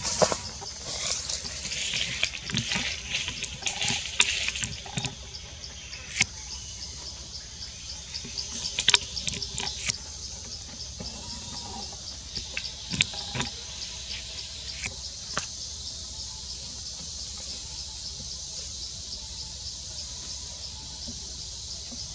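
Forest ambience: a steady high-pitched insect chorus pulsing about twice a second. Rustling and a few sharp clicks come in the first half.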